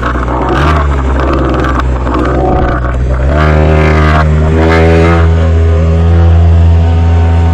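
Small outboard motor running and speeding up as its throttle is opened: the pitch steps up a little about half a second in, then rises sharply about three seconds in and holds at the higher speed.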